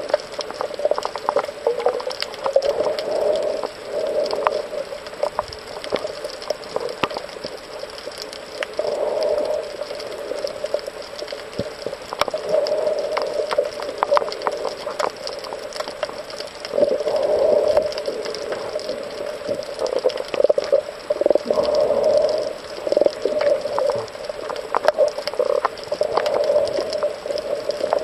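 Underwater sound picked up by a camera on a reef: scattered sharp clicks and crackles over a muffled rush that swells and fades every few seconds.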